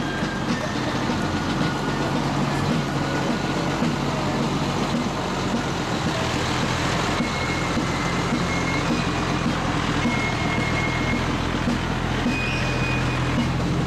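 Aerial ladder fire truck's diesel engine running with a steady low drone as the truck rolls slowly past, over a background hiss. A few short, high thin tones come and go near the middle and end.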